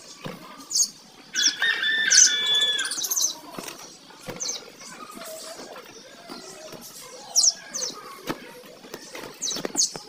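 A flock of budgerigars chirping and chattering, with short high chirps scattered throughout and a louder run of whistled calls between about one and three seconds in. A few brief soft thumps occur among the calls.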